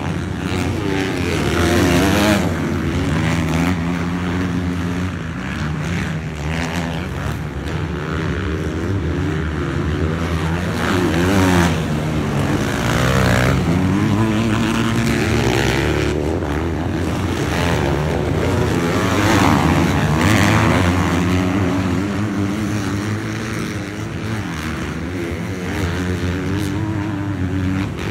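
Several motocross dirt bike engines revving hard around the track, pitch rising and falling again and again as riders open and close the throttle and shift through corners and jumps.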